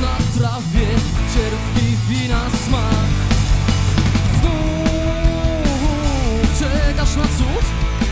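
Live rock band playing: electric guitars, bass and drum kit, with a lead line that holds one long note about halfway through and then bends down.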